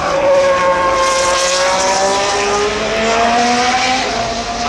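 A Formula One car's engine at high revs going past at racing speed. Its pitch sinks gradually for the first two seconds or so, then climbs as the car accelerates, and eases off slightly near the end.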